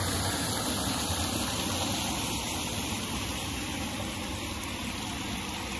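Steady rushing of flowing water, an even unbroken wash of noise with no separate splashes.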